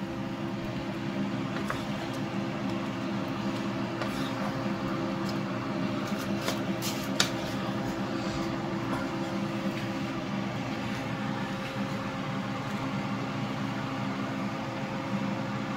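Steady hum of a kitchen appliance fan, with food sizzling in a frying pan and a few clicks of a wooden spoon against the pan as shrimp and bell peppers are stirred.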